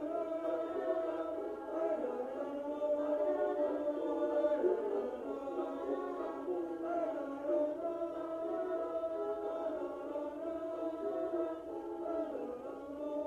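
A choir singing in slow, long-held harmony.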